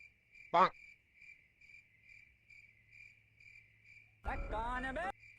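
Crickets chirping in a steady, rapid rhythm, with one short, loud squeak about half a second in and a louder, pitched, voice-like sound effect lasting under a second near the end.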